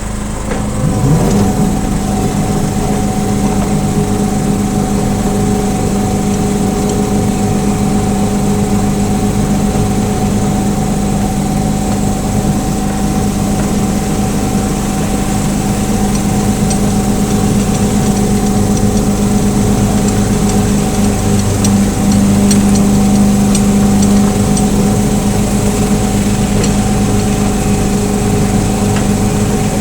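Engine of a small 18-inch gauge hydrostatic-drive locomotive revving up about a second in as it sets off, then running steadily under way.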